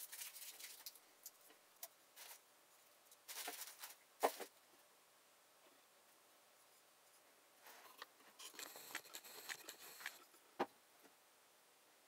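Faint crinkling and rustling of tape being peeled off a small glass Coca-Cola bottle, in a few short spells, the longest near the end. A knock about four seconds in, and a sharper one near the end.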